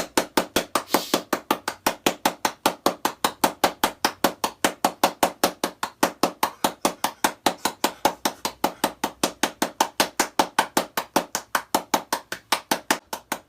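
A fast, very even run of sharp knocks or chops, about six strikes a second, keeping the same pace throughout.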